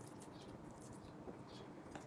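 Faint, scattered soft clicks and squishes of chopsticks handling saucy braised chicken pieces in ceramic bowls, over a faint steady low hum.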